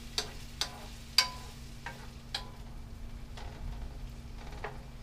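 Shrimp sizzling in butter and garlic in a skillet while being stirred with a wooden spoon. The spoon knocks and scrapes against the pan about seven times, with the sharpest clack about a second in, ringing briefly. A low steady hum runs underneath.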